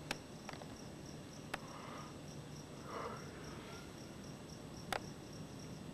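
Crickets chirping in a steady, even rhythm, broken by three sharp clicks, the loudest near the end.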